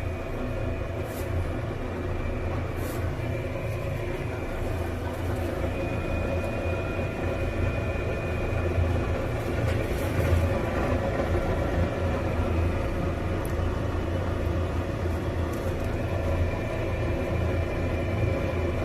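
Old kitchen range hood's exhaust fan running with an abnormal noise: a steady low rumble with a whine over it and a few faint ticks. This is the sound of a worn unit whose suction has grown weak.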